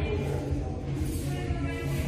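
Music with held, pitched notes over a steady low bass.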